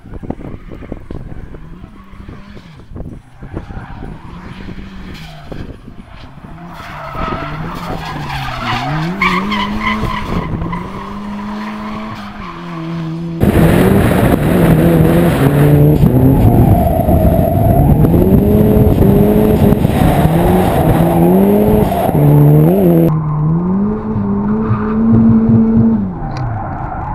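Turbocharged BMW M44B20 four-cylinder engine of an E36 Compact drifting, revving up and falling back again and again as the tyres skid. Distant for about the first half, then close and much louder.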